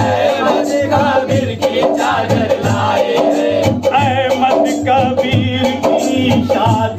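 Amplified devotional singing, a voice held and wavering in long melodic lines, over a steady hand-drum beat.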